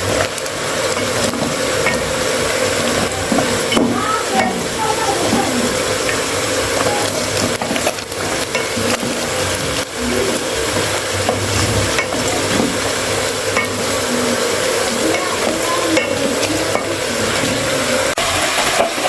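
Food frying and sizzling steadily in hot oil in a pan, with occasional short clicks from a utensil.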